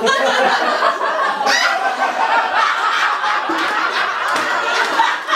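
Audience laughing at a joke.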